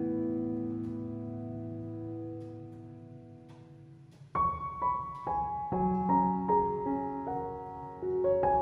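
Background piano music. A held chord fades away over the first four seconds, then a slow melody of single notes over a lower line starts a little over four seconds in.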